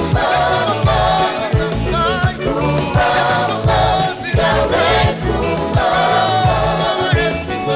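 Live gospel song: a lead singer and choir singing over a band, with a steady beat of bass and drum strikes.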